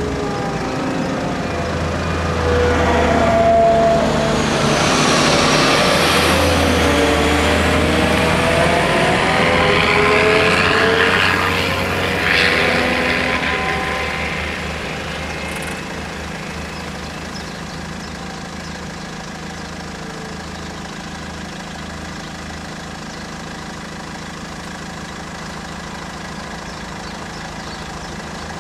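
A car drives up close and slows to a stop, with engine and tyre noise loudest for about ten seconds and its pitch bending as it passes and brakes. It then settles to a quieter, steady engine idle.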